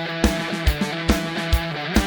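Background music: a rock track with guitar over a steady drum beat.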